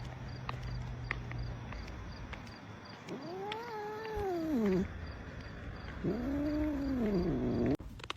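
A cat giving two long drawn-out yowls about a second apart, each rising and then falling in pitch; the second cuts off suddenly near the end.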